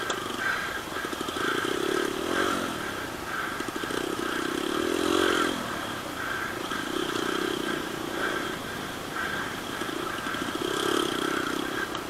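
Dirt bike engines revving, rising and falling in repeated swells every few seconds.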